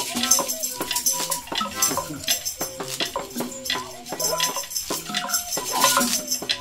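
A group improvising free sound textures with no beat or harmony: several pitched tones, some sliding in pitch, layered over dense rattling and jangling percussion, with an acoustic guitar being plucked among them.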